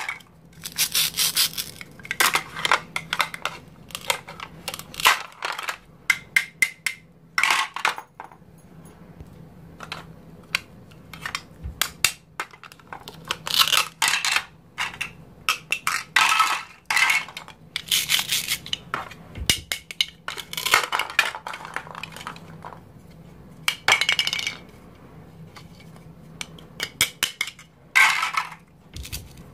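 Plastic toy food pieces clicking and clattering as they are handled and set down on a plastic plate and cutting board. Every few seconds comes a short rasping rip as velcro-joined halves are pulled or cut apart with a plastic toy knife.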